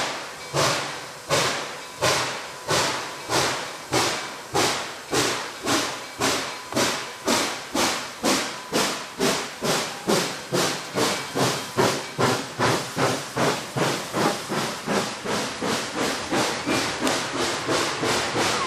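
Nickel Plate Road 765, a 2-8-4 Berkshire steam locomotive, working hard up a grade from a standing start: sharp exhaust chuffs, about one and a half a second at first and quickening to about three a second as it gains speed. Near the end the beats soften and blur together as the tender and coaches roll past.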